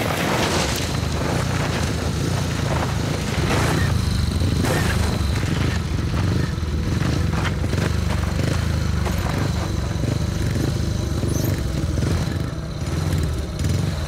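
Speedway motorcycle engines running in a steady low drone, with a few sudden louder bursts in the first five seconds.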